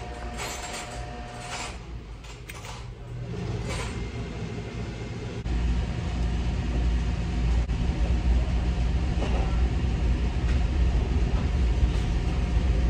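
A low, steady mechanical rumble, like a motor running, comes in a few seconds in and grows louder about halfway, then holds steady. A few light clicks come before it.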